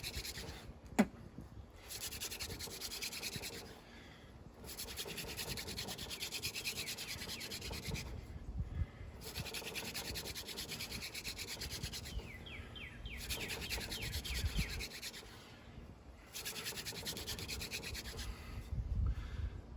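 Hand drill friction fire: a horseweed spindle spun fast between the palms, rubbing in a shortleaf pine fireboard. It goes in about six runs of a few seconds each, with short breaks between them. There is a sharp click about a second in.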